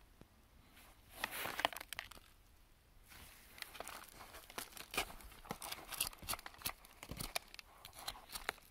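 Irregular rustling and crackling, with a louder patch about a second in and a dense run of sharp crackles from the middle onward.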